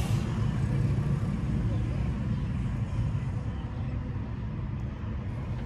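Steady low rumble of vehicle noise heard from inside a car's cabin.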